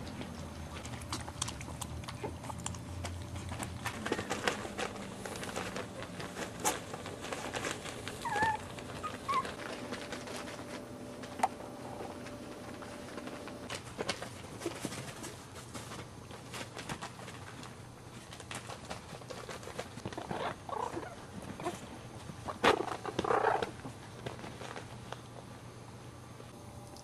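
Chihuahua puppies playing, with scattered small clicks and scuffles, a few short high squeaks about eight to nine seconds in, and louder short bursts of puppy noise around twenty and twenty-three seconds in.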